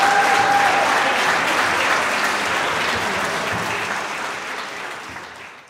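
Concert audience applauding, a dense wash of clapping that slowly dies down.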